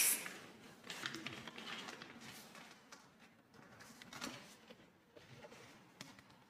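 Faint handling noises: an inflated gym ball and a plastic foot pump with its hose being moved about, with light scattered rubs and taps.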